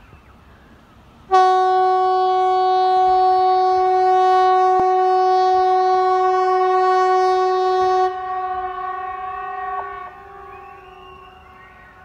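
'Hesa Fredrik', the Swedish outdoor public warning siren, sounding a single steady, loud tone that starts a little over a second in, holds for about seven seconds, then weakens and dies away about two seconds later.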